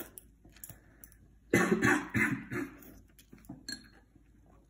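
A girl slurping in a mouthful of spicy instant ramen noodles, then coughing about four times in quick succession, mid-mouthful of the chili-sauced noodles.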